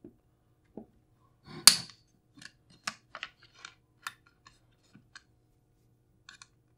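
Hex key loosening the handguard bolts on a shotgun's metal receiver: one sharp metallic click about a second and a half in, then a string of small, irregular ticks and clinks as the key is worked. The bolts are only hand snug, not torqued.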